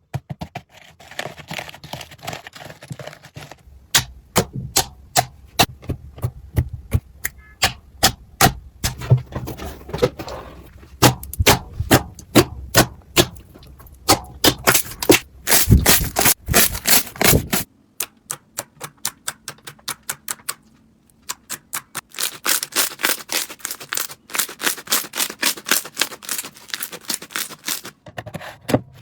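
Slime being squeezed, pressed and stretched by hand, giving sharp clicking pops a few times a second. It comes as several short takes, each with a different texture, that change abruptly a few times.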